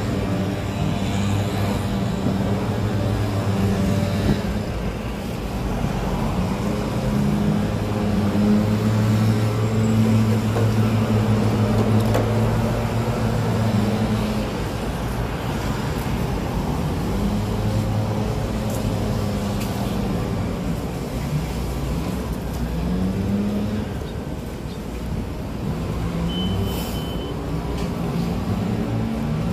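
City road traffic: vehicle engines humming and passing with a steady low drone that shifts in pitch, and a short high beep near the end.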